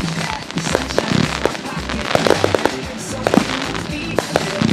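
Fireworks going off in quick succession: many sharp pops and crackles, over a music track with a steady bass line.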